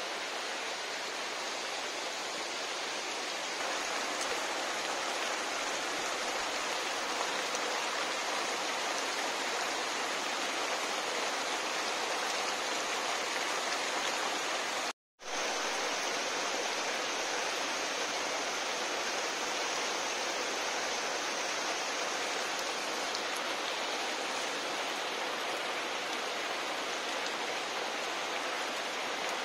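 Steady rain falling, an even hiss of water, with dripping off leaves. About halfway through the sound cuts out completely for a fraction of a second, then the rain resumes.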